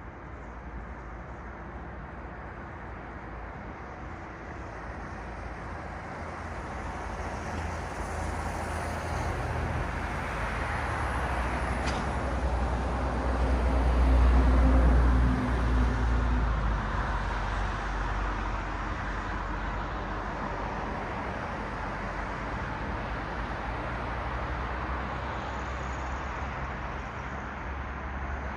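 Road traffic on a city street: a vehicle approaches and passes close by about halfway through. Its engine rumble and tyre noise swell to a peak and fade, over a steady traffic hum.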